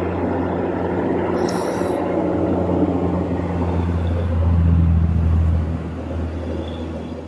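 A vehicle engine running with a steady low hum that swells about four to five seconds in, then eases off.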